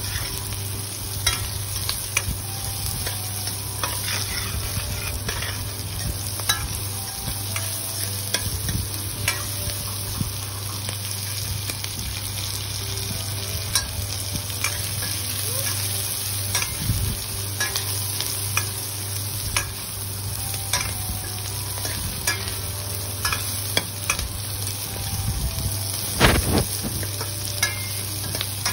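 Cubed onion and green bell pepper sizzling in oil in a stainless steel kadai over a high flame, with a metal spatula scraping and clicking against the pan as they are stir-fried. A steady low hum runs underneath, and a louder knock of the spatula comes about two seconds before the end.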